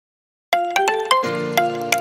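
Background music: a light melody of short ringing notes, about four a second, starting half a second in, with a low note held underneath from just over a second in.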